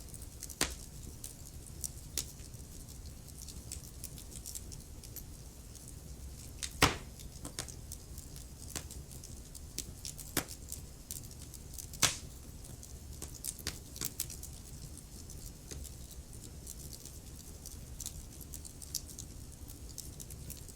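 Wood fire crackling in a fireplace: irregular sharp pops and snaps over a low steady rumble, with two louder pops about seven and twelve seconds in.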